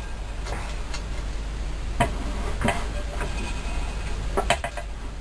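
A few sharp clicks and knocks from a Scheppach DP40 bench drill press being handled: its side lock and feed lever worked by hand. The clicks come about two seconds in, again shortly after, and as a quick group near the end.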